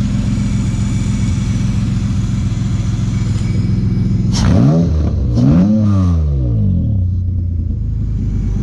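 Honda J35 V6 engine, freshly retimed and with its vacuum leaks capped, idling evenly. About halfway through it is blipped twice by hand at the throttle body, its pitch rising and falling each time before it settles back to idle.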